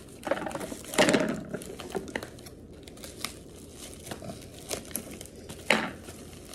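Paper packaging and tissue paper crinkling and tearing as it is handled and cut open with scissors, in irregular rustles with a louder burst about a second in and a sharp crackle near the end.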